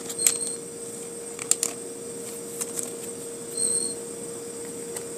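Trading card being slid into a plastic card sleeve: a few light clicks and plastic rustles with a short high squeak a little past the middle, over a steady hum.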